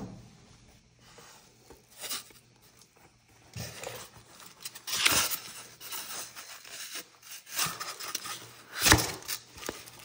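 A heavy fabric vest and foam block being handled: rustling, rubbing and scraping in several short bursts, with a louder thump near the end.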